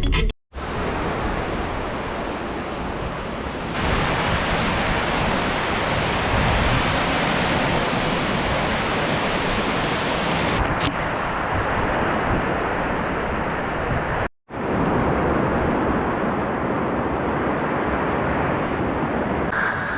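Rushing water of a rain-swollen mountain stream's rapids: a steady, loud wash of noise that briefly drops out twice, about half a second in and again around fourteen seconds in.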